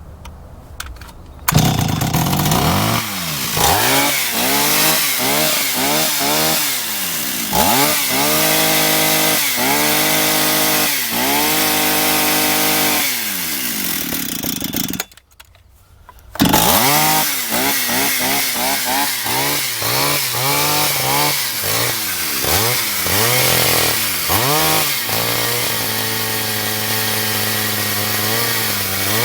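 Old Stihl 031AV two-stroke chainsaw, fitted with a new carburetor, catching and running, revved up and down over and over. The sound drops out for about a second and a half midway, then the saw runs and revs again before settling to a steady idle near the end. This is a test run to see whether the new carburetor cures its start-then-stall problem.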